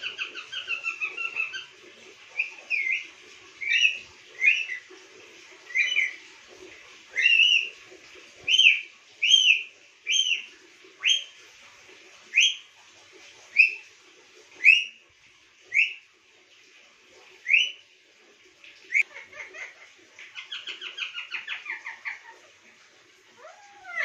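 Pet parakeet calling: a run of short, sharp, whistle-like chirps, each a quick slide in pitch, about one a second, with a fast chattering trill at the start and again near the end.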